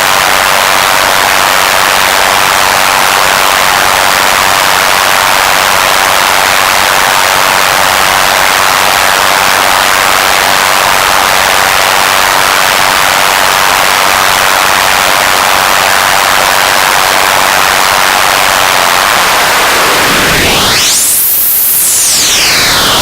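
Radio static: a loud, steady crackling hiss of interference noise. About twenty seconds in, a thin whistling tone sweeps up very high and comes back down over about two seconds, a frequency spike in the static.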